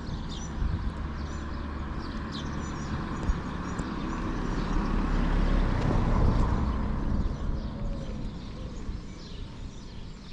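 A car passing on the street, its noise swelling to a peak about six seconds in and then fading away, with small birds chirping.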